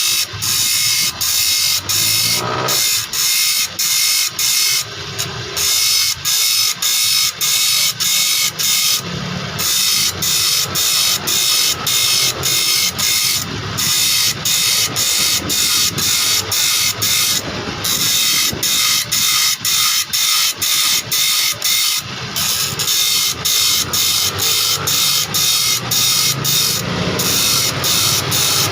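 Saw-blade sharpening machine grinding in a fast, even rhythm of about two to three strokes a second, with a hissing grind on each stroke. A slightly longer break comes every few seconds.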